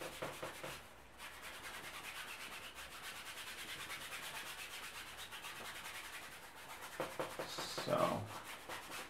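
A paintbrush scrubbing a thin, solvent-thinned wash of umber oil paint over a canvas: a quiet, steady rasping rub in repeated back-and-forth strokes, about three a second.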